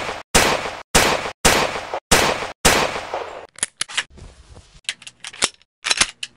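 Colt M1911A1 .45 pistol firing a string of single shots about every half second, each with a short ringing tail. After about three and a half seconds the shots stop and give way to a quick run of sharp metallic clicks and clacks of the pistol's action, as in a reload.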